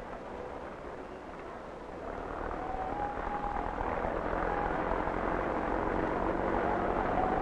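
Street traffic noise that grows louder from about two seconds in, with a few short horn toots.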